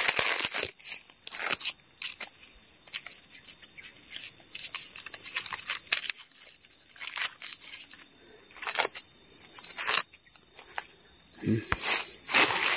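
Dry leaves crackling and tearing as they are pulled off a durian's stem: a run of irregular sharp crackles. Under it, a steady high-pitched drone of insects.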